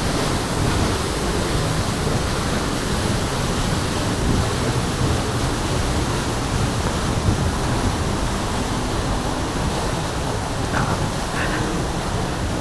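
Steady rushing noise of a nearby waterfall.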